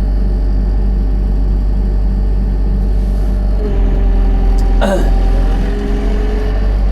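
Excavator diesel engine running steadily with a low drone, and a hydraulic whine that comes in a little over halfway through. There is one brief sharp noise about five seconds in.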